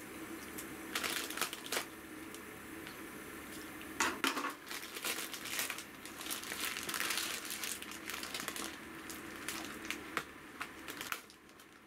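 Plastic packaging crinkling and rustling in irregular bursts as it is handled, with the loudest crackle about four seconds in.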